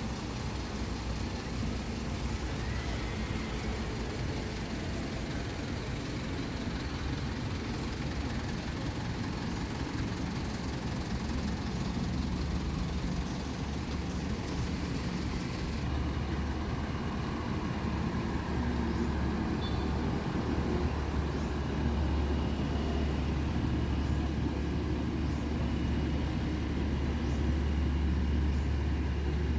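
Engines of heavy military vehicles, a tow truck and six-wheeled armored vehicles, running as they drive slowly past. The low engine sound grows louder over the second half.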